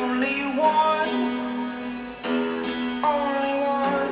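Music with plucked, guitar-like notes and held tones playing through a homemade cardboard speaker box driven by a PAM8403 5 W amplifier kit.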